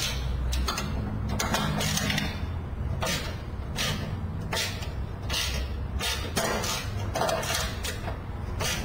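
Motorcycle engine idling with an uneven knocking beat about twice a second over a low rumble.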